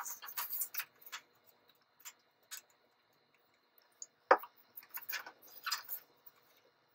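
Glue stick and construction paper being handled: a string of small clicks and short paper rustles, with one sharper knock about four seconds in.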